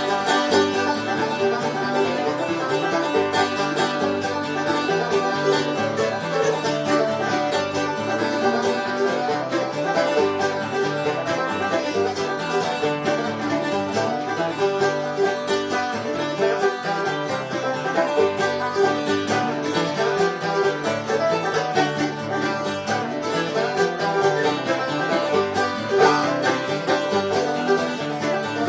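Bluegrass string band playing an instrumental passage, with plucked strings picking out a continuous run of notes.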